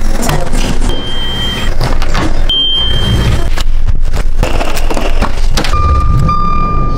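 Knocking and rustling of a hand-held camera carried along while walking, with footsteps. Near the end a steady electronic beep starts, fitting a car's warning chime as the ignition is switched on.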